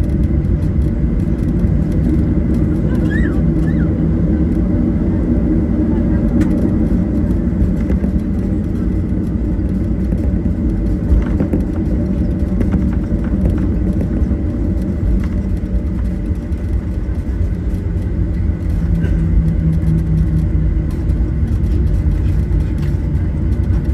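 Jet airliner's engines running steadily, heard inside the passenger cabin: an even deep rumble with a low hum, holding level without building up.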